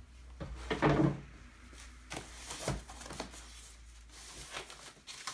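Packaging being handled during unboxing: a loud bump or scrape about a second in, then scattered lighter taps and the rustle of a thin plastic wrapping sheet.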